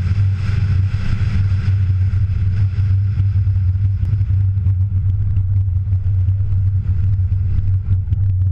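Steady low drone of a car driving on a gravel road, its engine and wind heard through a camera mounted on the bonnet, with scattered clicks of gravel from about halfway through.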